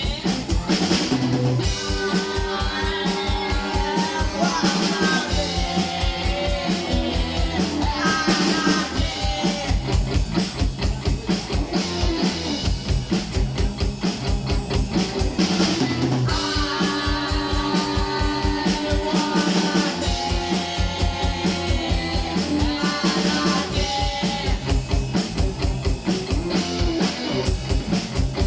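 Punk rock music: a drum kit keeping a fast, even beat under electric guitar and singing.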